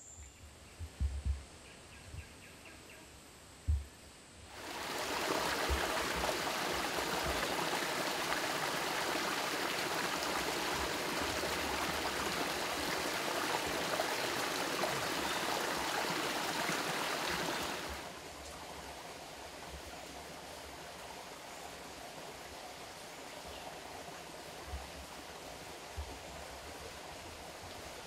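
Small forest stream splashing over rocks in little cascades. The rush of water starts abruptly after a few quiet seconds with some low thumps, then drops sharply about two-thirds of the way through to a softer, steady flow.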